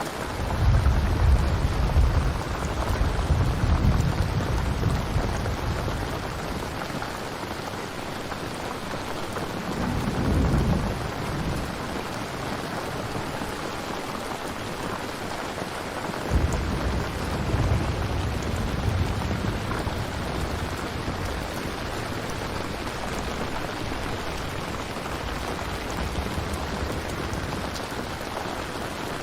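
Steady rain with low rolls of thunder: a long one just after the start, a shorter one about ten seconds in, and another starting about sixteen seconds in and slowly fading.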